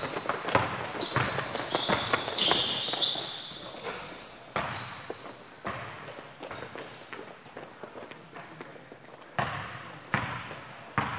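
Basketball game play in a large gym: the ball bouncing and hitting, thick and fast for the first few seconds and then sparser, with sneakers squeaking in short high chirps on the court.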